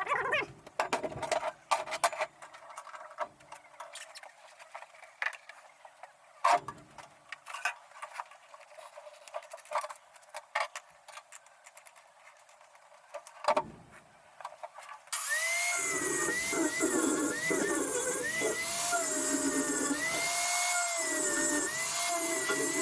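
Scattered clicks and knocks of tools or parts being handled. About two-thirds of the way in, a small power tool motor starts suddenly and keeps running, its pitch wavering up and down.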